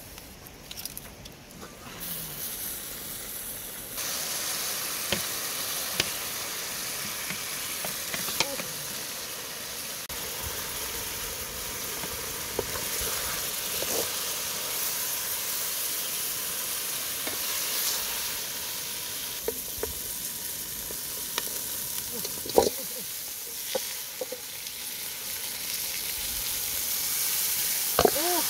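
Chicken and cabbage sizzling in a metal cooking pot, starting a few seconds in, with a wooden spoon stirring and occasional sharp knocks that ring off the pot. Near the end more cabbage is tipped into the pot.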